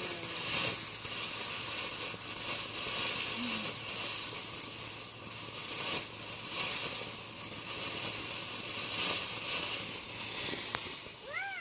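Small ground firework burning, with a steady crackling hiss of sparks throughout.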